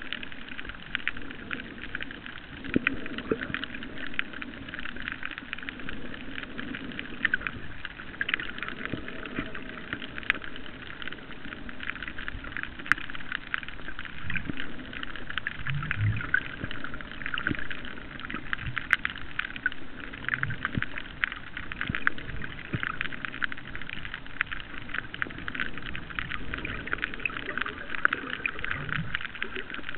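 Underwater reef ambience: a steady crackling hiss made of dense fine clicks, with a few short low sounds around the middle and near the end.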